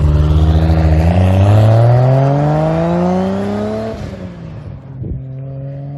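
MKIV Toyota Supra engine accelerating hard, its pitch climbing steadily for about three seconds, then dropping back to a steady lower drone.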